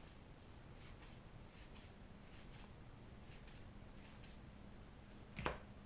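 Faint soft swishes of Magic: The Gathering cards sliding one past another in the hands as a pack is fanned through, with one sharp click near the end.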